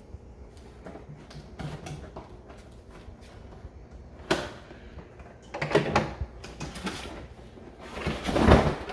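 Cardboard box and packaging being handled: faint clicks and taps at first, then louder scraping and rustling about four, six and eight seconds in, as the packed robot vacuum is slid out.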